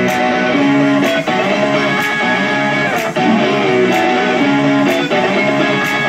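Guitar-led music played loud through a Bluetooth speaker set to 80% volume, with a sharp beat about once a second.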